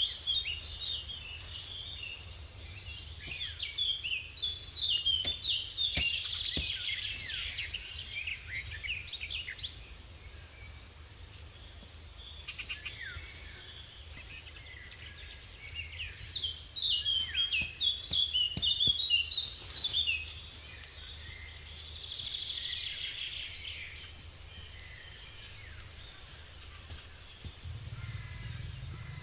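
Songbirds singing, with rapid high chirping phrases in two busier spells, over a low steady background rumble.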